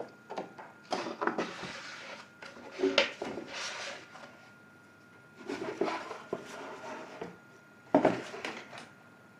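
Card sheet and plastic tray being handled during soaking in thinned silicone: the card rustling, a brush rubbing over it and the tray knocking. The sounds come in several short bursts, with the sharpest knocks about three and eight seconds in.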